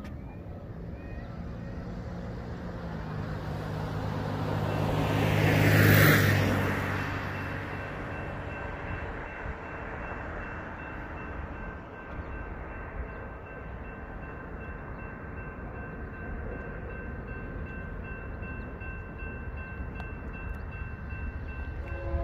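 A car drives past on the road beside the tracks, swelling to its loudest about six seconds in and then fading, over a steady low rumble. Right at the end a distant train horn begins to sound.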